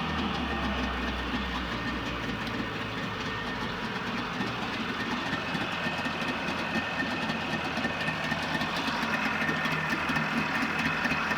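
Boat outboard motor running steadily, a constant mechanical drone with a faint high whine.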